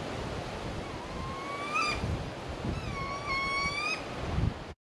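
Gusty wind buffeting the microphone over the river, with two rising, whistled calls, one about a second in and a longer one about three seconds in. The sound cuts off abruptly near the end.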